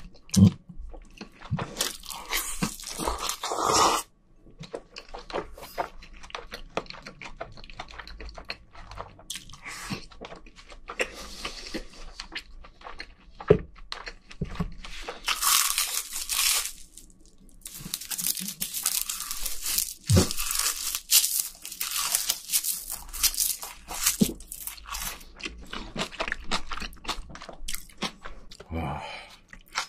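Close-miked eating sounds: a person chewing, biting and crunching a meal of fried egg, rice and kimchi, in irregular bursts with a few sharp clicks.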